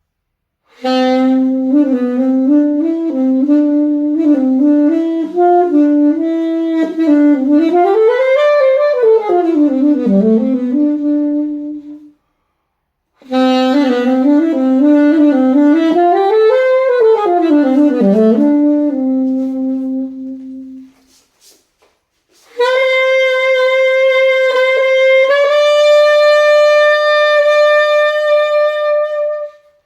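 Alto saxophone improvising, played live: two wavering phrases, each swooping up about an octave and sliding back down, with short silences between them. Near the end a long, steady reedy note is held and steps up a little once.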